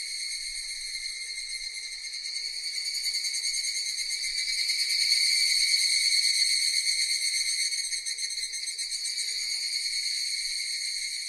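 Cicadas buzzing in a continuous high drone that swells louder about halfway through and eases off toward the end.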